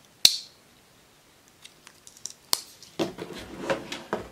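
A red pocket knife and a cardboard model-kit box being handled: one sharp click about a quarter second in, a few faint ticks, then rustling and scraping of the cardboard box and its wrapping from about three seconds in.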